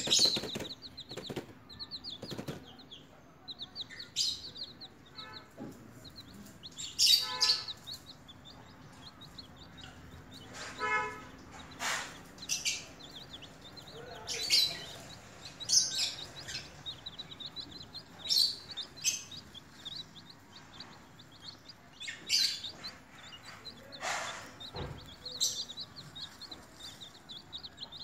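Baby chicks peeping: strings of short, high chirps throughout, with a louder, sharper peep every second or two.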